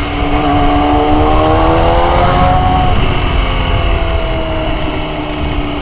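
Motorcycle engine pulling, its pitch rising a little and then easing off, under heavy wind rumble on the microphone while riding.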